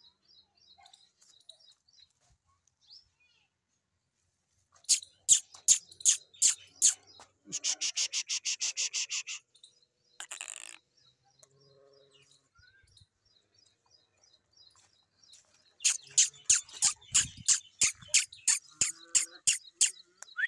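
Birds chirping: loud, sharp, high-pitched calls come in quick series, with a fast trill about halfway through and a long run of regular calls, about three a second, near the end.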